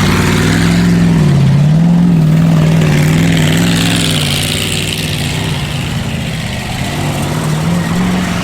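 A van's engine runs with its revs wavering up and down, then cuts out near the end as the engine stalls.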